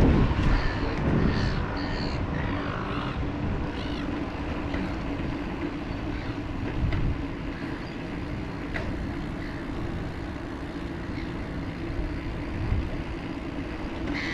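Outdoor ambience heard from a moving bicycle: steady wind and rolling noise with a low hum, and the sound of passing road traffic. A few faint higher chirps come in the first few seconds.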